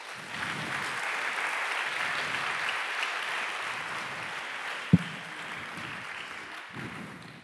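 Audience applauding, building within the first second and tapering off near the end. A single sharp thump about five seconds in.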